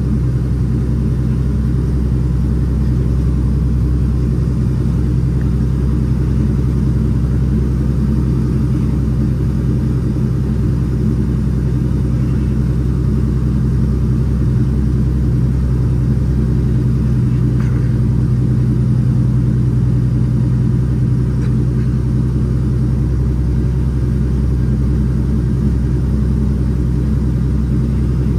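Cummins ISX 525 hp diesel of a fully loaded International ProStar dump truck running steadily on the road, heard from inside the cab as a constant low engine drone with road noise.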